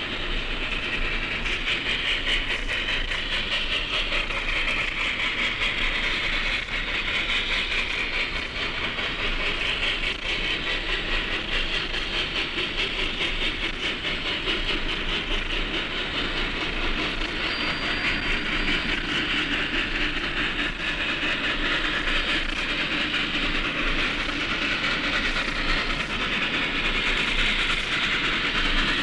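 Steam locomotive running with its train, a steady rush of exhaust and wheel-on-rail noise, on a 1956 recording.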